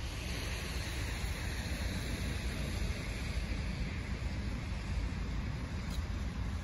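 Steady outdoor background noise dominated by a heavy low rumble, with no distinct events.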